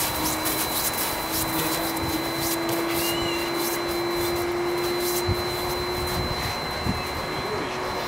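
Steady hum of a small motor with one unchanging tone, which cuts off about six seconds in.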